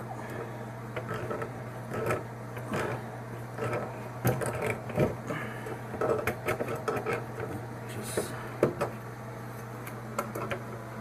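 Washing-machine water-inlet hose fittings being handled and screwed on by hand: scattered clicks, taps and light knocks, over a steady low hum.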